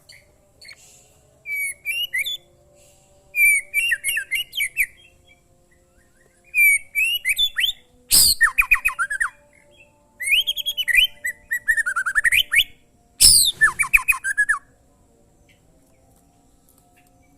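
White-rumped shama (murai batu) singing in bursts of rapid whistled and chattering phrases separated by short pauses. Two of the phrases open with a sharp, harsh note. The song stops about three-quarters of the way through.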